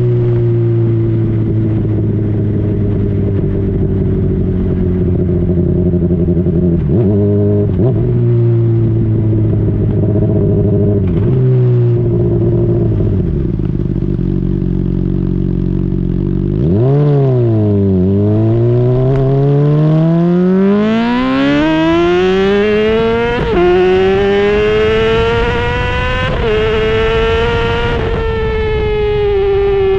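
2010 Honda CBR600RR inline-four with a Yoshimura slip-on exhaust under way. The engine holds a steady note with a few brief dips as gears change, then revs hard, the pitch climbing through a gear change to a high scream before it eases off and the note falls near the end.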